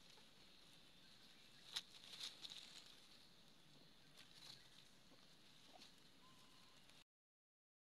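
Near silence with faint crackling and rustling of dry leaf litter as monkeys move and scuffle on it, with a few sharper clicks about two seconds in and again around four seconds. The sound cuts out completely near the end.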